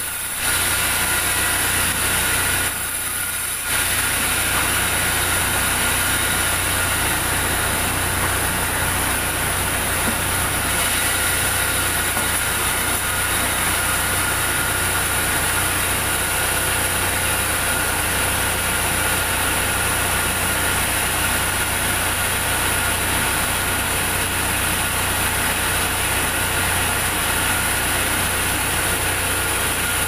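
Large sawmill band saw and its motor running steadily: a constant machine drone with steady high whining tones over it. The sound dips briefly about three seconds in.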